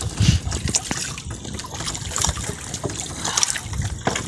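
Water trickling and dripping off a wet fishing net as it is hauled by hand over a boat's side, with scattered small knocks and splashes.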